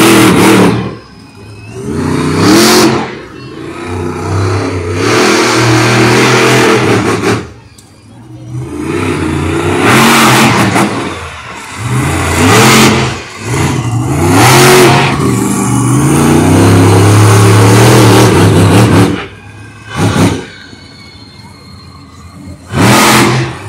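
Monster truck engine revving hard in repeated bursts, pitch climbing and falling as the throttle opens and closes, with short lulls between; the longest sustained run comes past the middle.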